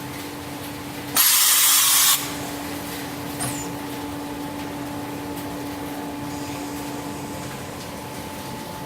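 CNC machining center for wooden furniture legs running with a steady hum. A loud hiss about a second long cuts in a little after the start and stops abruptly, followed by a short click.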